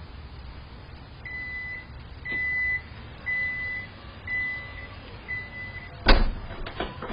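Five evenly spaced, high-pitched electronic beeps, about one a second and each about half a second long, then a single loud sharp smack about six seconds in, followed by a few lighter clicks.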